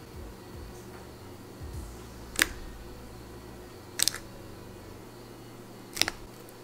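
Fingers poking into thin, melted slime in a plastic jar, making three sharp wet clicks about two seconds apart, the second and third doubled.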